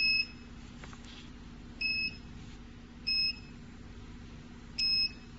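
Dental porcelain furnace control panel giving short electronic key-press beeps as values are entered, four single beeps at uneven intervals, over a faint steady low hum.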